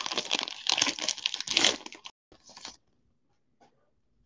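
Wrapper of a pack of hockey cards crinkling and tearing as the pack is ripped open, a dense crackly rustle that stops about two seconds in.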